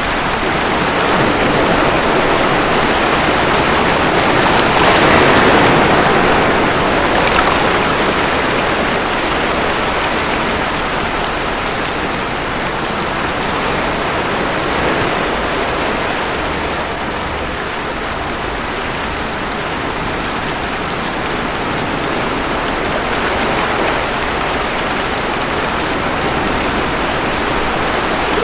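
Steady rain mixed with ocean waves washing ashore: an even, dense hiss that surges louder about five seconds in and then eases back, with gentler swells later.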